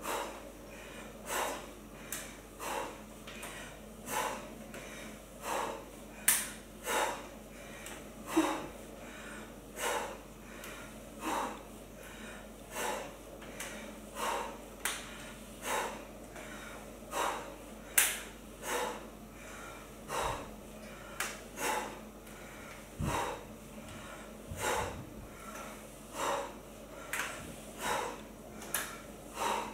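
A woman's short, forceful breaths out, one about every second and a half, in time with the reps of a crunch exercise.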